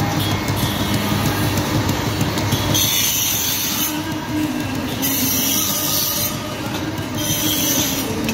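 A slate-cutting machine running steadily, with a harsh high screech in bursts of about a second each, three times, as pieces of slate are fed against its cutter.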